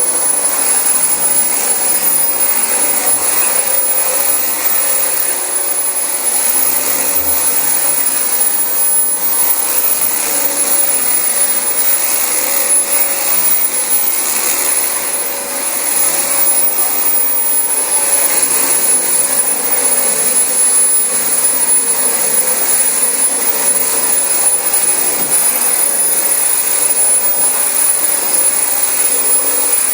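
Dyson DC25 bagless upright vacuum cleaner running steadily on thick carpet: a loud, even rush of motor and suction with a thin, steady high whine over it. The sound dips briefly about halfway through.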